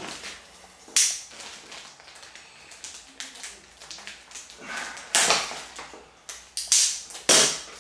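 Plastic packaging crinkling and rustling as a plastic-wrapped stack of instruction manuals is handled. There is a sharp rustle about a second in and three more in the last few seconds.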